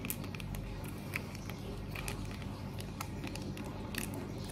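Faint crinkling and scattered soft clicks of a plastic seasoning sachet being squeezed out onto cooked instant noodles, over a steady low hum.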